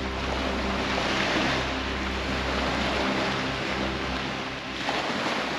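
Sea waves washing in and ebbing, swelling about a second in and again near the end. A steady low motor hum, like a boat engine, runs underneath.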